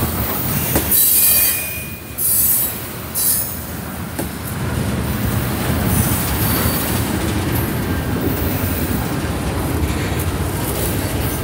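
A Norfolk Southern freight train's hopper and tank cars roll past with a steady rumble of steel wheels on rail. Brief high-pitched wheel squeals come in the first few seconds.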